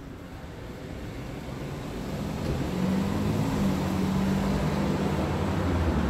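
Motor vehicle engine on the street, getting steadily louder and then holding a low, even hum from about two seconds in, as it approaches or passes.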